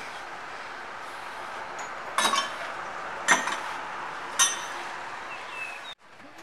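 Three ringing metal clanks about a second apart, like hammer blows on steel, coming from a neighbouring ironworks. A steady hiss runs underneath.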